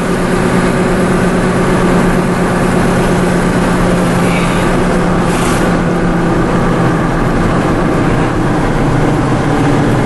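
Truck engine running steadily, mixed with strong wind noise from the tornado's inflow.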